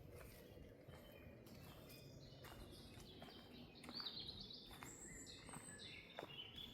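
A songbird singing a run of quick, high, twittering phrases that begin about two seconds in and are loudest near the middle, over soft, scattered footsteps on the forest floor.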